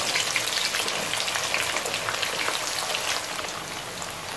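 Raw potato cubes deep-frying in hot oil in a kadai: a dense sizzle full of small pops, easing slightly in loudness as the batch settles.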